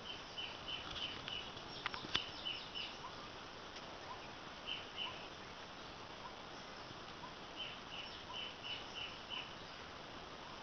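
A small bird calling in runs of quick, short high chirps, four bursts of them, over a faint steady background hiss. A couple of sharp clicks about two seconds in.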